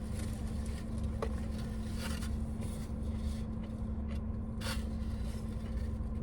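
A steady low rumble with a constant hum, and a few faint brief rustles or scrapes about a second, two seconds and four and a half seconds in.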